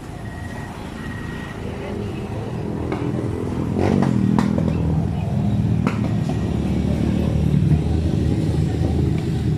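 Motor traffic, with an engine running close by that grows louder about four seconds in, and a few sharp clicks or knocks.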